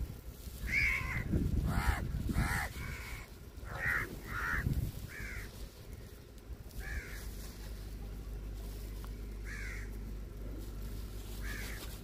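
A flock of crows cawing: short, harsh caws come several in quick succession over the first five seconds, then singly every couple of seconds.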